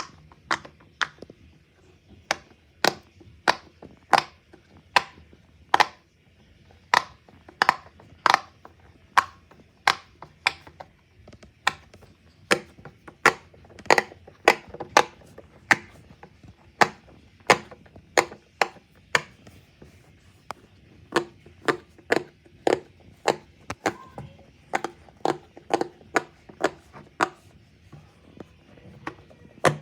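A long series of sharp knocks or raps, one or two a second in an uneven rhythm.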